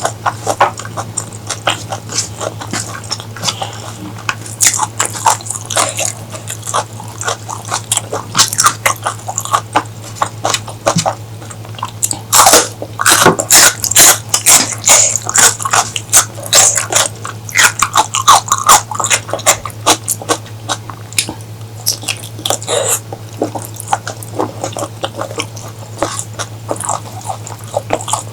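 Close-miked eating sounds: wet chewing, mouth smacks and many quick clicks, loudest about twelve to fourteen seconds in, over a steady low hum.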